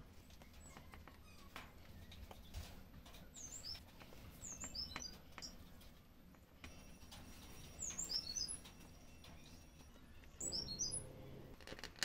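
A small bird chirping faintly in four short clusters of quick high chirps, over light clicks and taps of small wooden pieces being handled.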